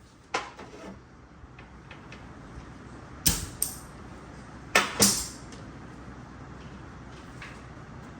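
A few sharp knocks and clanks, as of tools and parts being handled and set down, with the loudest pair about five seconds in, over a steady low hum.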